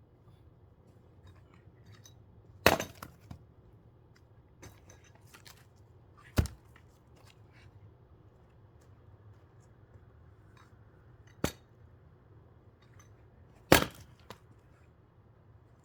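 Four sharp, uneven strikes of a splitting tool into a thick firewood log, some followed by a few faint knocks.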